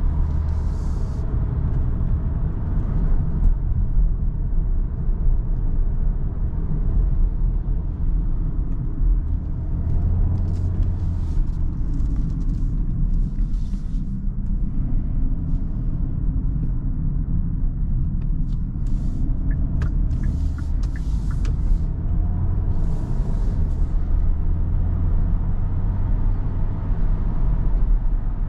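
Inside the cabin of a Kia Sorento 1.6 T-GDI hybrid SUV on the move: a steady low rumble of tyres and powertrain, broken by a few brief hisses.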